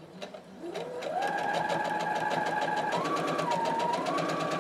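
Domestic electric sewing machine starting up: its motor whine rises as it gets up to speed, then it runs steadily with rapid, even needle strokes, stitching through layered fabric and batting. Its speed shifts slightly up and down a few times near the end.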